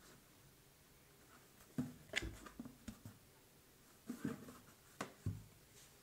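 Handling noise of an empty plastic bucket: a few light knocks and rubs as it is moved and set on a table, in small clusters about two, four and five seconds in.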